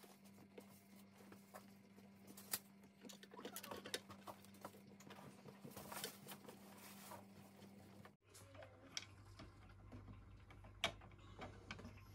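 Faint, scattered clicks and taps of a screwdriver and plastic parts as a chest freezer's plastic lid handle is fitted, over a low steady hum.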